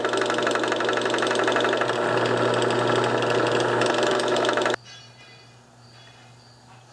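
Benchtop drill press motor running with the bit drilling into a small metal block: a steady hum with fine, rapid chatter from the cut. It cuts off suddenly about five seconds in.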